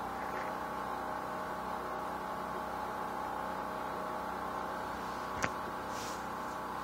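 A steady hum made up of several held tones, with one sharp click about five and a half seconds in.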